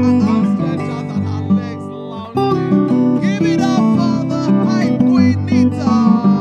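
Background music playing continuously.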